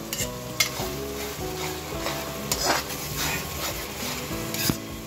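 Metal spatula stirring tomato purée into onion-garlic masala frying in oil in a non-stick pan: a steady sizzle with a few sharp scrapes of the spatula against the pan.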